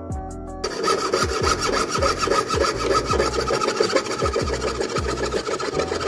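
Fast, steady rasping strokes of a hand tool working silver start abruptly less than a second in, over background music with a steady beat.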